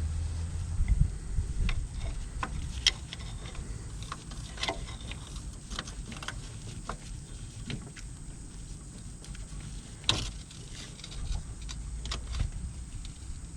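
Scattered, irregular clicks and knocks of hands and tools at work on a vehicle, with a low rumble in the first second or so and the sharpest knocks about three and ten seconds in.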